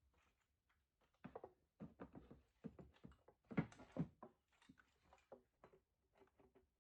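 Faint, irregular knocks and clicks, loudest about three and a half to four seconds in.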